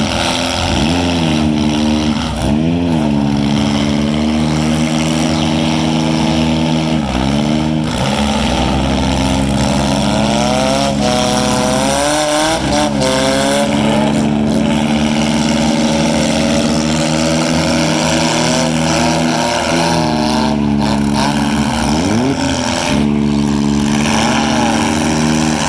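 Four-cylinder demolition derby car engines running and revving, their pitch dipping and rising again every few seconds.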